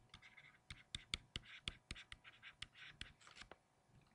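Faint taps and short scratching strokes of a stylus writing on a tablet screen, in an irregular run that quiets near the end.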